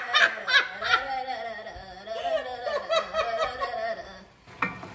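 Two women laughing together, the laughter dying away about four seconds in.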